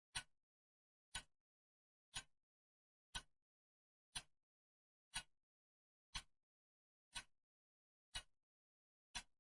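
Clock ticking steadily, about once a second. Each tick is a sharp click followed closely by a fainter second click.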